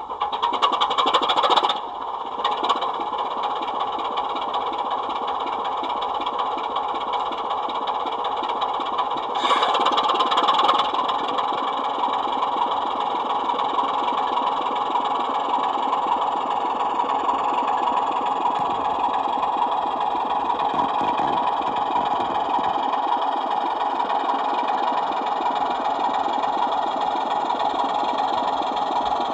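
Onboard sound decoder of a Sutton's Locomotive Works OO-gauge Class 24 model playing the locomotive's Sulzer diesel engine sound through its small speaker, running with a steady rhythmic beat. It grows louder for the first two seconds and again briefly about ten seconds in.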